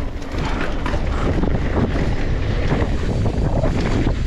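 Wind rushing over the camera microphone of a mountain biker riding fast down a dirt trail, a steady loud rumble that builds about a second in as the bike picks up speed.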